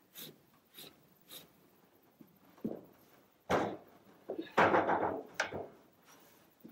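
Wood-framed corrugated metal shower wall panel knocked and scraped into place against the shower base and adjoining walls. There are a few faint ticks, then a thump about three and a half seconds in and a run of knocks and scraping a second later.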